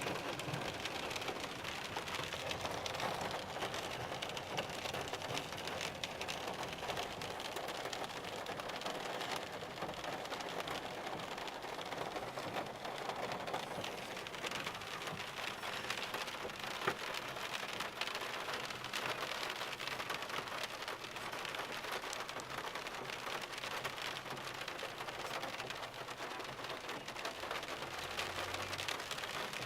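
Steady rain falling on a car, a dense patter of drops heard from inside the cabin.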